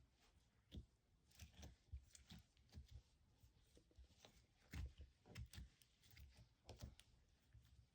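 Faint, irregular sticky clicks and squishes of slime being handled by hand, several small pops a second.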